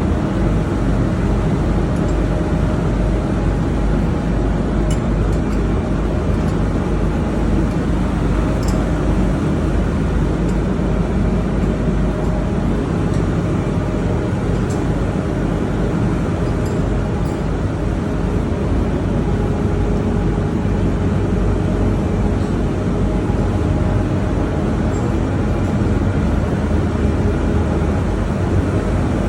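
Generator engine running steadily at a constant speed, a loud even low-pitched drone with a few faint ticks.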